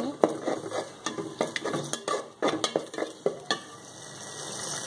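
A steel spatula stirring and scraping onions with ground garlic, ginger and cumin paste in an aluminium pot, clicking against the pot's sides, as the masala fries. About three and a half seconds in the scraping stops and a steady sizzle of the frying spices is left.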